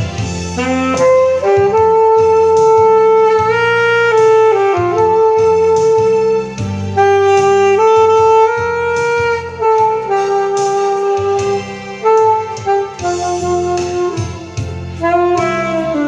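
Saxophone playing a slow melody of long held notes with short slides between them, over a backing accompaniment with bass and a steady beat.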